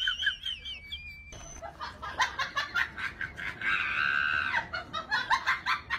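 High-pitched squealing and screaming voices. A quick string of short, choppy sounds follows, with a held high scream about four seconds in.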